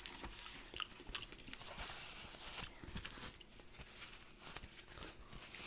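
A person chewing a mouthful of food close to the microphone: faint wet mouth sounds with small scattered clicks.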